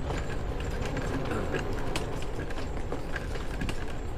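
ATV running on the move, a steady low engine and road sound with frequent irregular knocks and rattles.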